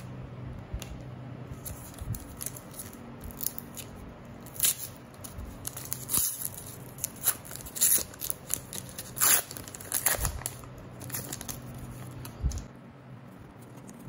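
Foil wrapper of a Panini trading card pack being torn open and crinkled by hand: irregular crackling and ripping, sharpest in the middle, which stops shortly before the end.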